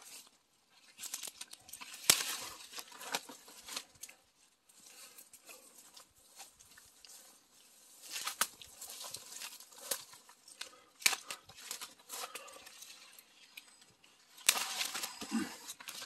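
Persimmon tree leaves and twigs rustling and crackling in irregular bursts as the branches are pushed aside and handled, with a few sharp snaps.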